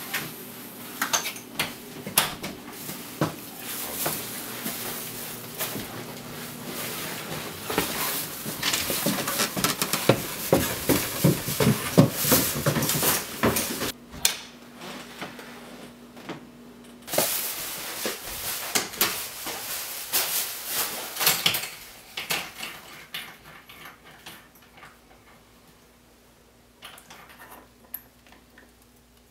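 Clattering, knocking and metallic rattling of a door and its hardware, busiest about ten seconds in. It dies down near the end to a few light clicks as a combination padlock is handled on a door hasp.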